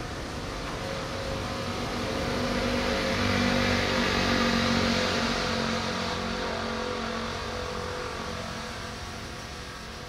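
Diesel-hauled train rolling away along the track: steel wheels on rail with a steady diesel engine hum. It swells to its loudest about four seconds in, then fades as the train recedes.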